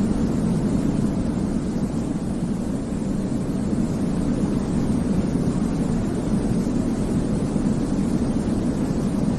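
Baby-sleep white noise: a steady, even hiss-like rumble weighted toward the low end, with no changes in level or pitch.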